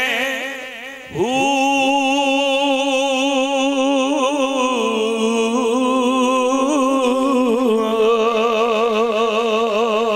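A man's voice chanting a line of Punjabi Sufi verse as a long, drawn-out sung note with a wide vibrato. After a short breath about a second in, he holds the note, and it steps down in pitch about halfway through.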